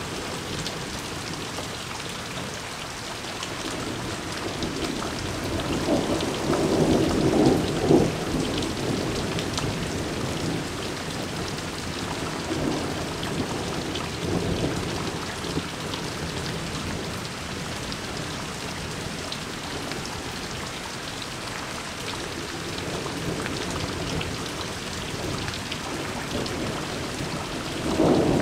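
Heavy rain falling steadily in a thunderstorm. Thunder rumbles up and fades about a quarter of the way in, weaker rumbles follow, and another peal begins at the very end.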